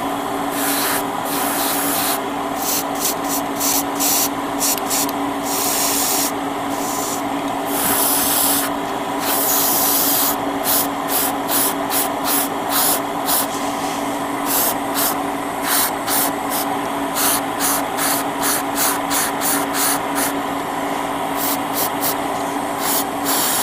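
Airbrush spraying paint in dozens of short hissing bursts as the trigger is pressed and released, with a few longer passes between about six and ten seconds in, over a steady motor hum.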